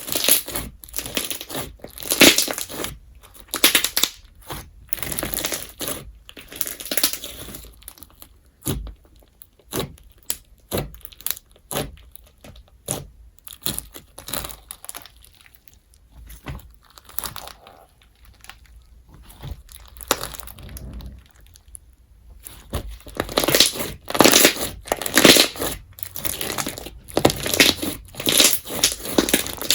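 Glossy glue slime mixed with foam beads (crunch slime) being squeezed and pressed by hand, giving irregular crackling crunches and sticky pops. It quietens in the middle, then grows louder again over the last several seconds.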